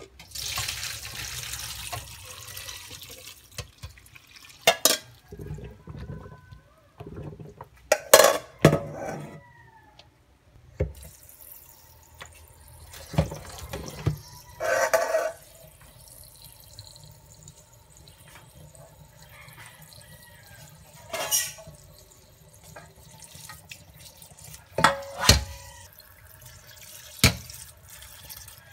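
Cooking water and spaghetti poured from a pot into a stainless steel colander in a sink, a rush of water for the first few seconds. Then a tap runs over the noodles in the colander, with sharp knocks of tongs and metal against the colander now and then.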